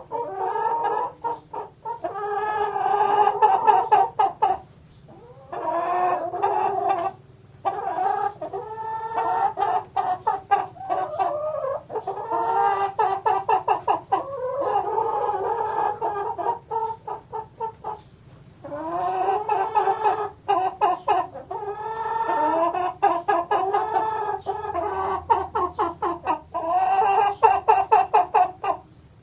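Chickens clucking and cackling: runs of quick clucks alternating with longer drawn-out calls, broken by a few short pauses.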